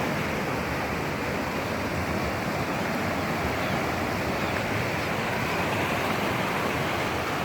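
Steady rush of river water pouring over the rocks at the falls, an even unbroken noise.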